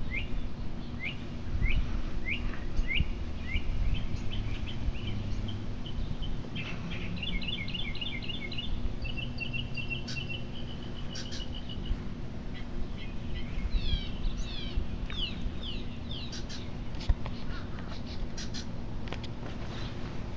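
Wild songbirds calling: a run of short rising chirps about two a second, then quick trills, and later a series of fast falling notes.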